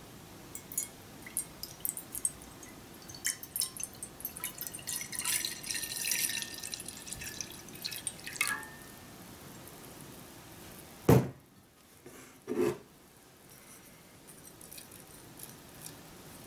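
Soy sauce poured from a glass measuring jug into a frying pan, splashing and dribbling for about eight seconds. Then two heavy knocks about a second and a half apart, the loudest sounds.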